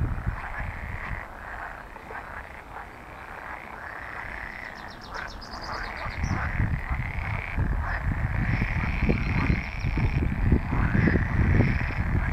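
Chorus of pool frogs calling, many overlapping croaking calls at once. It drops back a couple of seconds in and swells again from about six seconds, with a low rumble underneath in the second half.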